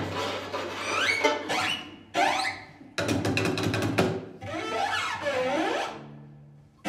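String quartet (two violins, viola and cello) playing in short, abrupt bursts. The bursts are made of quick sliding glissandi up and down and sudden stops, with a run of rapid repeated bow strokes about three seconds in. Near the end comes a quieter low held note.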